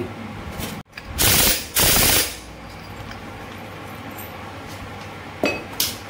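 Two half-second bursts of a pneumatic impact wrench, about a second in, tightening the clutch centre nut on a Bajaj CT 100 engine, followed by a couple of sharp metal clinks near the end.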